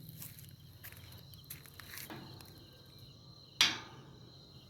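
A single sharp click about three and a half seconds in: the small flashlight's magnetic base snapping onto a metal surface. Crickets chirp steadily in the background.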